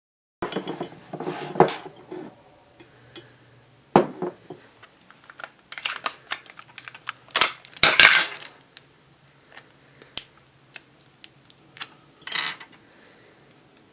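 Plastic Rubik's Cube pieces and a glass jar being handled: irregular clicks, rattles and clinks, with the loudest cluster about eight seconds in.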